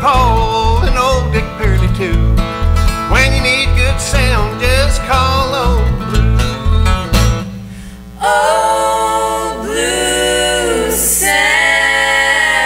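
Bluegrass jingle sung with acoustic guitars and a steady, pulsing low bass line under the melody. About seven and a half seconds in, the instruments drop out and three women's voices sing held close harmony, unaccompanied.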